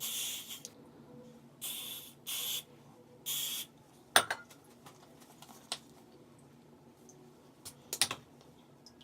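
Aerosol hair glue spray (Got2b Glued) hissing in four short bursts over the first few seconds, then a sharp knock about four seconds in and a few clicks near the end.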